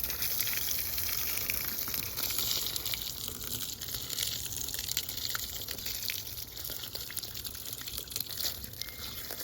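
Water spraying and splashing steadily, with scattered small ticks and drips.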